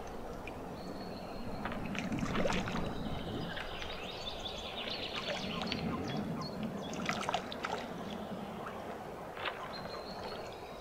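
Water sloshing and trickling, with scattered light clicks and knocks.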